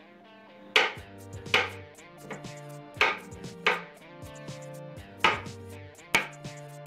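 Knife chopping on a cutting board: single sharp strikes about once a second, with quiet background music underneath.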